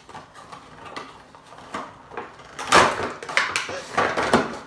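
Cardboard box and plastic packaging rustling and scraping in the hands as a vinyl Funko Pop figure is taken out, in short bursts with the loudest about three seconds in.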